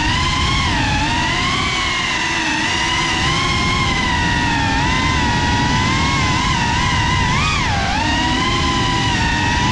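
GEPRC CineLog35 ducted FPV drone's motors and propellers whining in flight, a steady high buzz whose pitch wavers up and down with the throttle. About seven and a half seconds in, the pitch jumps up and then dips sharply.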